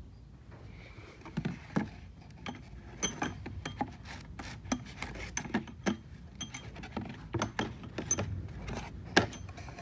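Loose metal engine parts being rummaged through in cardboard boxes: a run of sharp clicks and clinks, several ringing briefly, a few each second, over a faint background hiss.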